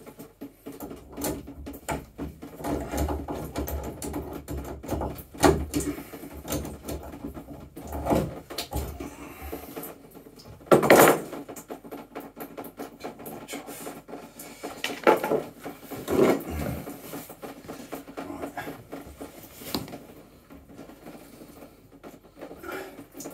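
Plumbing hand tools and metal fittings being handled: irregular knocks, scrapes and clinks as a drain-off valve is worked loose and a copper pipe on a hose is offered up in its place. The loudest clunk comes about eleven seconds in, with two more around fifteen and sixteen seconds.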